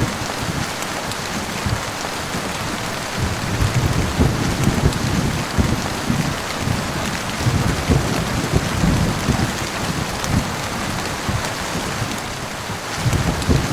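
Steady rain with rolling thunder rumbling underneath, strongest in the middle and swelling again near the end.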